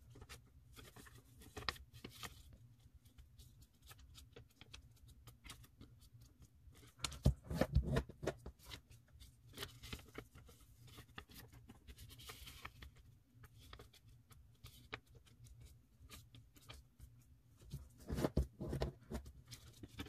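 Sheet of origami paper rustling and crinkling as it is folded and creased by hand. Louder stretches of rustling come about seven seconds in and again near the end.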